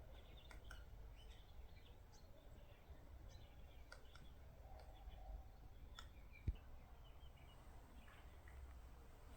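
Faint, irregular clicks of a woodpecker pecking at food in a tree, with a few brief high chirps and one low thump about six and a half seconds in.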